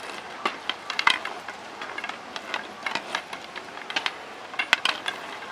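Wooden sticks knocking and tapping irregularly on stone paving: many sharp clacks, with louder strikes about a second in and near the end.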